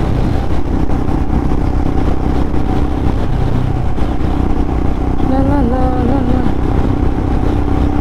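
Motorcycle engine running steadily at highway speed, with heavy wind and road rumble on the rider's microphone. A brief wavering pitched sound rises over it about five and a half seconds in.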